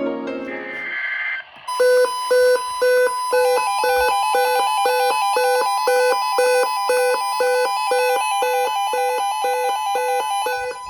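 Weather-radio emergency alert: a steady alert tone, with a second tone joining it a moment later, under a sharp electronic beep repeating about twice a second.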